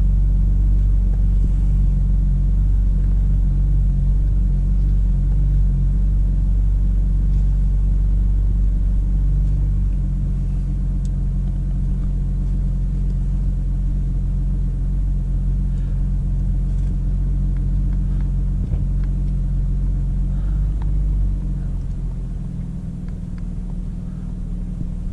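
BMW M4's S55 twin-turbo inline-six idling steadily, its low idle note shifting slightly about ten seconds in and becoming a little quieter near the end.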